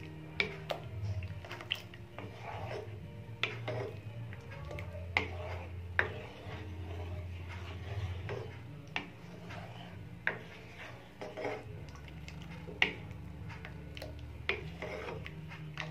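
A ladle stirring a thin milk mixture in a metal pan, knocking and scraping against the pan's side and bottom in irregular clicks about once a second.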